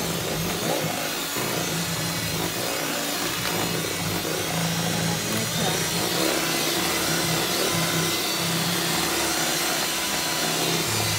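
Electric mixer running steadily, beating cake batter.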